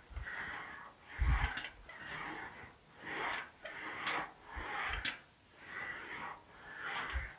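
Sheet-metal fender panel being rolled back and forth through an English wheel, a rolling hiss on each pass, about one pass a second, with a low thump about a second in. These are light smoothing passes with no bumps heard: the small wheeling marks are mostly worked out.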